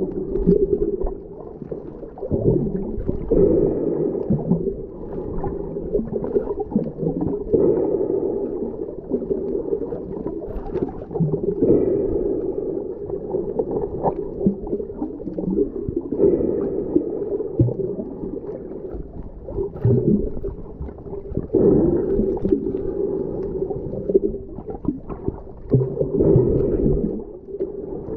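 Muffled underwater water sound picked up by a submerged camera, swelling and fading about every two seconds as the snorkeler swims.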